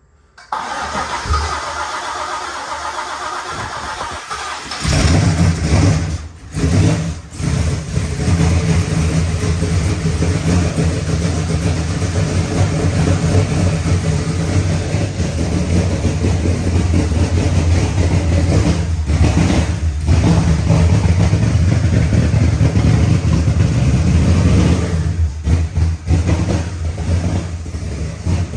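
Car engine cranked over by its starter for about four seconds, then it catches and runs, faltering briefly twice before it settles into steady running. The manifold does not seat properly on the heads and is leaking, giving a vacuum leak.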